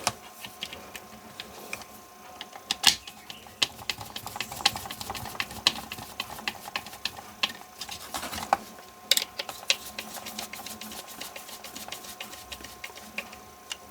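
Small screws being driven with a hand screwdriver into a mosquito catcher's plastic housing: a run of irregular sharp clicks and taps of screwdriver and plastic parts being handled.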